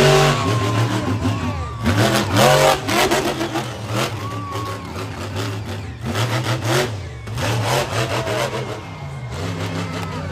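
Monster truck's supercharged, alcohol-fuelled engine revving hard in repeated bursts, its pitch rising and falling with each stab of the throttle.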